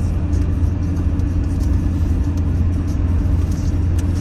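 Steady low drone of engine and road noise heard inside the cab of a moving van.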